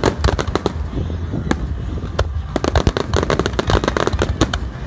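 Aerial fireworks display: many sharp bangs and cracks in quick, irregular succession over a steady low rumble.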